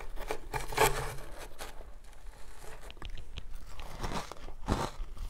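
Powdery ice coated in matcha powder being bitten and chewed: a string of irregular crunches, the loudest about a second in.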